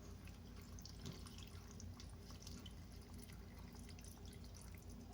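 Faint trickling and dripping of water being poured into an instant-noodle container up to its fill line, heard as scattered small drip ticks over a low steady hum.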